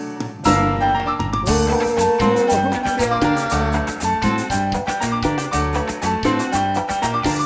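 Cumbia band playing live, an instrumental passage without singing. The bass drops out briefly right at the start, then the full band comes back in.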